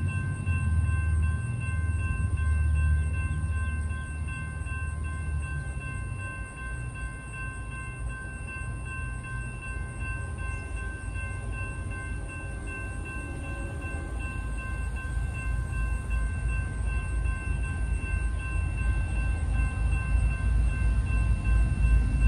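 Low rumble of a train, strong in the first few seconds, dying down through the middle and building again near the end. Several steady high-pitched tones run under it throughout.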